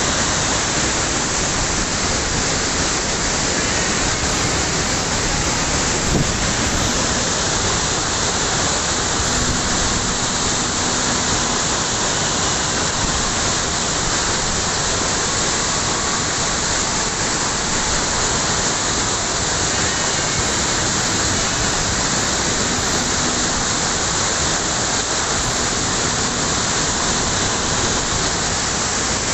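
Waterfall in heavy flow: a loud, steady rush of falling water.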